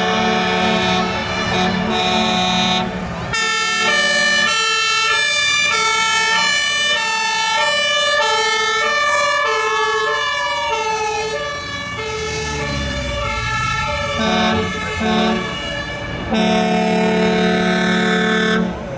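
Fire engines' two-tone sirens sounding together, several overlapping at different pitches, with a brief rising-and-falling wail in the middle. Long steady horn blasts sound at the start and again near the end.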